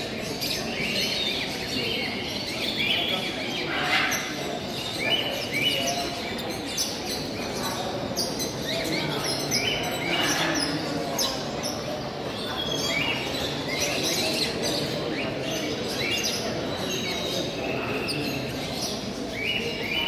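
Many caged parrots and other show birds chirping, with short calls coming again and again over the steady background noise of a busy exhibition hall.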